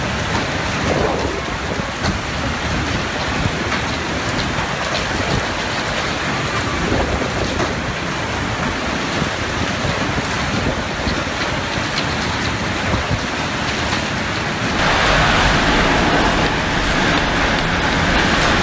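Heavy rain pouring down in a severe storm, a dense steady noise of water. About fifteen seconds in it turns louder and fuller.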